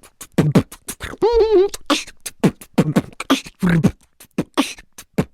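Beatboxing: a fast run of mouth-made kick, snare and click sounds, several a second, with a short wavering vocal tone about a second in.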